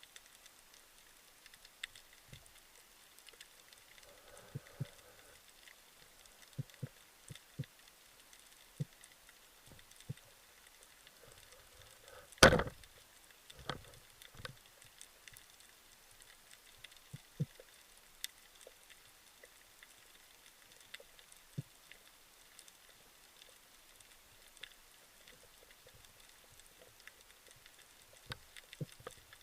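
Underwater sound through an action camera's housing: a faint crackle with scattered small clicks, and one loud sharp knock about halfway through.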